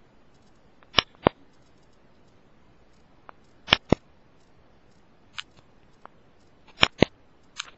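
Sharp, short clicks, mostly in close pairs about a quarter-second apart, repeated several times.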